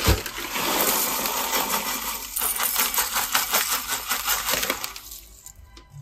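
Roasted sunflower seeds poured into small porcelain bowls: a dense rattling patter of seeds hitting the bowl and each other, thinning out near the end.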